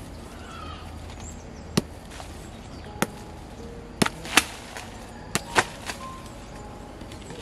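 Sharp, irregular knocks of a hand tool striking an old hollow clay brick to chip off crusted mortar, about seven strikes.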